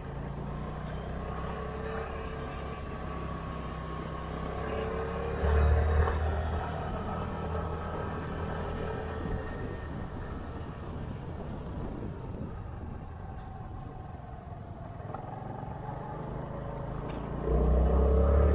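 A motor vehicle running: a steady low engine hum that swells briefly about five seconds in and grows louder again near the end.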